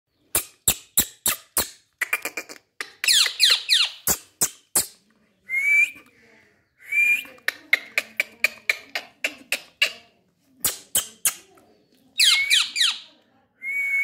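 Indian ringneck parakeet vocalising: runs of sharp clicks at about three a second, two bursts of quick downward-sliding squawks, and a few short whistled notes.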